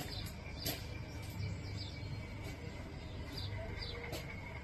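Small birds chirping, a string of short falling chirps repeated every half second or so, over a low steady rumble.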